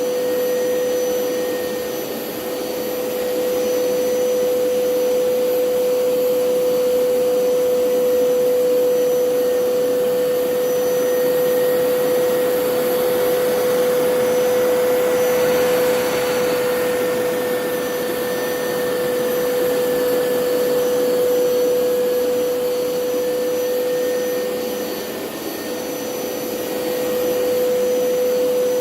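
Hoover PowerScrub Elite carpet cleaner running, its suction motor giving a steady hum with one strong pitch, dipping in loudness briefly about two seconds in and again near the end.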